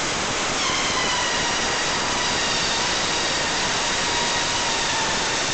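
Loud, steady hiss of compressed air escaping from a workshop air hose. A faint whistle joins it about half a second in and slowly falls in pitch.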